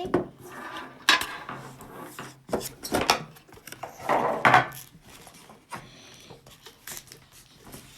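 Pokémon card packs and their packaging being handled on a table: scattered clicks, taps and rustles, with a busier stretch of handling near the middle.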